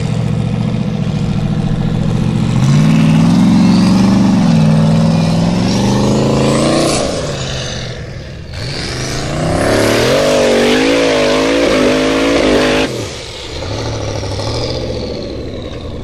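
Off-road competition buggy's engine revving hard under load on a steep dirt hill climb. The pitch climbs for several seconds, dips, then climbs again and holds high with a wavering note. About three-quarters of the way through it cuts off abruptly to a lower running note.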